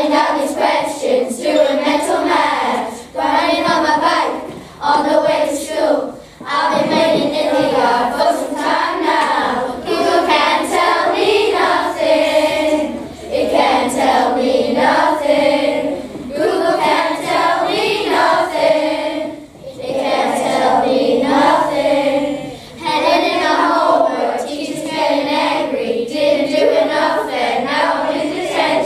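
A group of children singing together in phrases.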